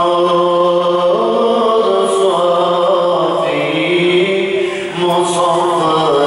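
A man's solo voice chanting in Arabic into a microphone, holding long ornamented notes that step from pitch to pitch, with a short pause for breath about five seconds in.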